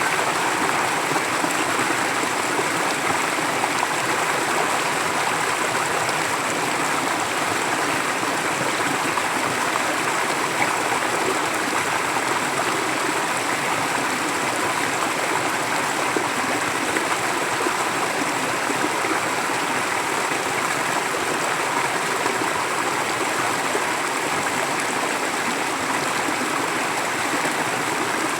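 A forest stream flowing steadily over rocks, a continuous rushing and gurgling of water.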